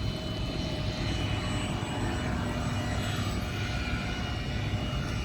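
Steady boat motor drone: a low, even rumble with a few faint, steady high-pitched whines over it.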